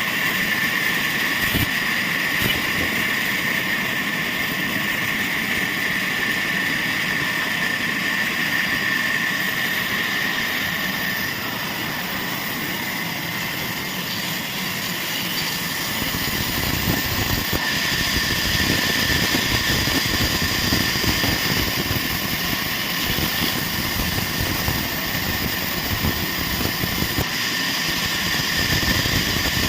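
Sawmill machinery running steadily, a continuous mechanical noise with a high whine from the saw; the lower rumble grows heavier about halfway through.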